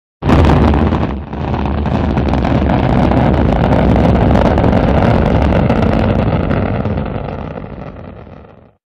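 Rocket engine sound effect for a spacecraft stage separating and its upper-stage engine firing: a sudden loud burst, a brief dip about a second in, then a steady deep engine noise that fades out near the end.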